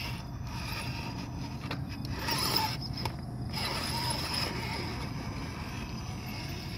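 Small electric motor and gears of a 1.9-scale RC rock crawler whining steadily as it drives, with a brief louder stretch about two and a half seconds in.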